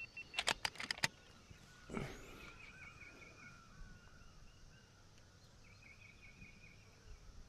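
A bird calling in quick repeated chirps, in two runs, the second near the end. A few sharp clicks come in the first second, and a soft thump at about two seconds.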